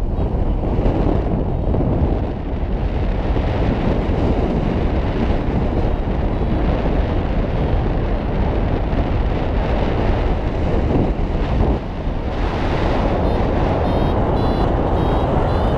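Airflow of a paraglider flight rushing over the microphone: loud, steady wind noise with a deep rumble, dipping briefly about two seconds in and shifting in character about twelve seconds in.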